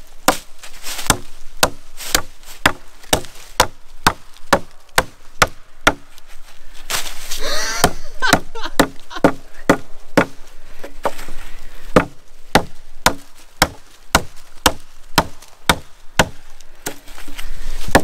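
Wood being chopped: sharp blows of a blade into wood, repeating steadily at about two a second, with a brief break in the rhythm about seven seconds in.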